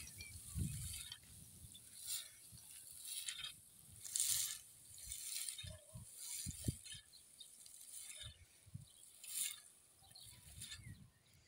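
Threshed straw tossed with a pitchfork for winnowing: a dry rustling swish with each forkful, about one every second or so, and wind rumbling on the microphone.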